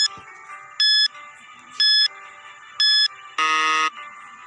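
Quiz countdown timer sound effect: a short, high electronic beep about once a second, four times, then a longer, lower buzzer tone of about half a second marking that time is up. Faint background music plays underneath.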